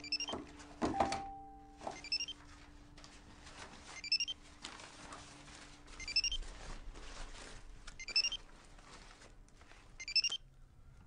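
A mobile phone ringing: a short rising electronic ringtone phrase repeated about every two seconds, six times, stopping near the end.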